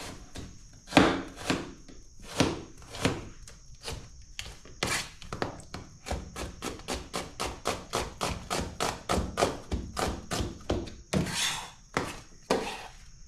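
Kitchen knife chopping onions on a wooden cutting board: a few spaced strokes, then about five seconds in a fast, even run of about three strokes a second. Near the end come two longer scraping sounds, like the blade sweeping across the board.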